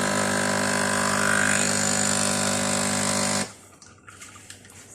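Nespresso coffee machine's pump buzzing steadily as it pushes water through a capsule, then cutting off suddenly about three and a half seconds in when the brew ends.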